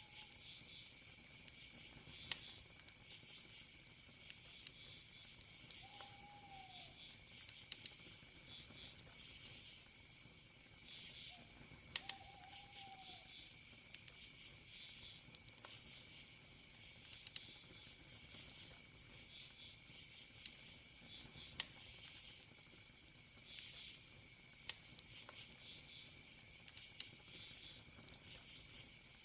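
Faint campfire crackle: wood popping with sharp clicks every second or two, over crickets chirping steadily in a high, pulsing trill. Twice, a short call rises and falls in pitch.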